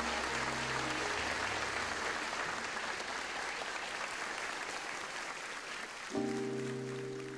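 Theatre audience applauding as the song's final held notes die away in the first second. About six seconds in, a sustained musical chord starts under the clapping.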